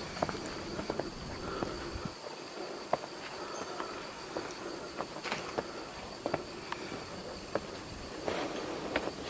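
Footsteps climbing stone steps: irregular scuffs and taps about once or twice a second, over a faint steady high-pitched hum.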